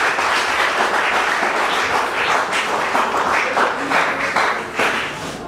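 An audience of schoolchildren applauding, many hands clapping in a dense patter that dies down near the end.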